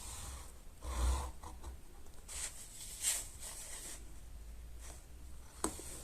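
Soft scraping and rustling of cardstock being scored along a ruler and handled, a few short strokes, with a sharp click near the end.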